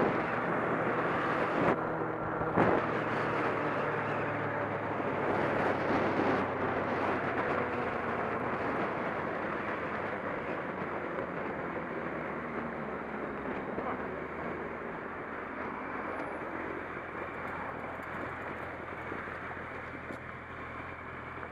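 Motorcycle slowing down on the highway: wind rush and engine noise fading gradually, with a couple of sharp knocks in the first few seconds. The bike is decelerating after striking a deep pothole at about 60 mph that bent its wheels.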